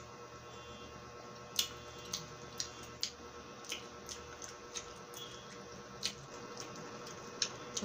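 Close-miked wet mouth sounds of a person chewing and sucking raw lemon: irregular squishy smacks and clicks, about ten of them, over a faint steady hum.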